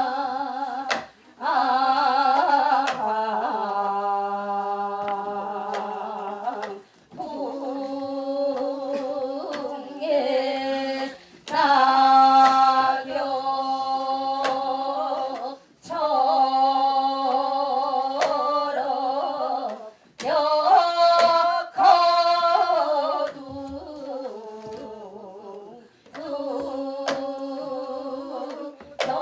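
A woman singing a Korean Seodo sori folk song in long held, wavering phrases broken by short pauses, with a few sharp strikes now and then.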